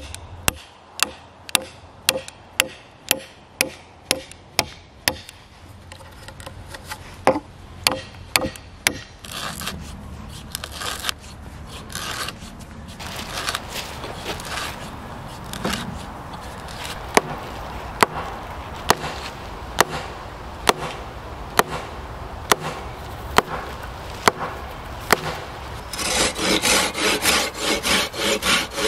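Sharp wooden knocks about two a second, then a hand auger grinding as it bores through a cedar pole with a click at each turn, and near the end a folding pull saw cutting the wood in quick rasping strokes.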